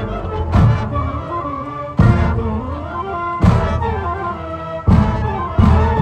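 Marching band playing held chords, punctuated by five heavy drum hits spaced about a second or a second and a half apart.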